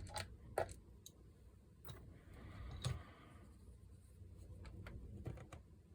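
Faint clicks and a short stretch of light scraping from a small screwdriver taking a screw out of a laptop's plastic underside. There are a handful of separate ticks, with a scratchy turning sound about two to three and a half seconds in.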